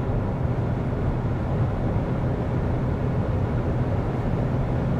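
Steady road and wind noise inside the cabin of a Li Auto L7 SUV at about 180 km/h, with no whistle or hum over it: the door seals are taped over, which cures the high-speed hum.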